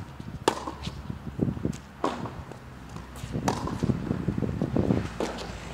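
Tennis ball being hit back and forth in a rally on a hard court: sharp pops of racket strings on the ball and bounces, a loud one roughly every one and a half seconds with fainter ones in between.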